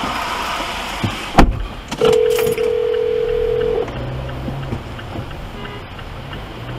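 Telephone ringback tone from an outgoing emergency call: one steady ring of about two seconds, starting about two seconds in. A sharp click comes just before it, over steady rain and car noise.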